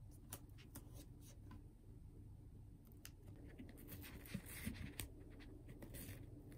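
Faint scratching and scattered light clicks of hands working fabric and double-sided tape around a wooden canvas frame, with a few sharper taps past the middle.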